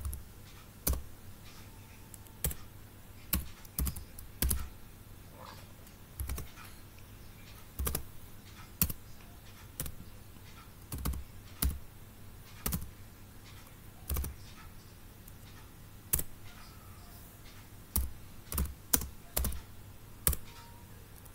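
Typing on a computer keyboard: irregular keystroke clicks, some in quick runs and others after short gaps.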